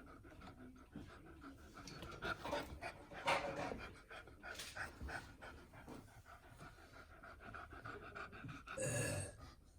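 Beagle panting in quick, short breaths, louder a couple of seconds in, with one brief, louder sound near the end.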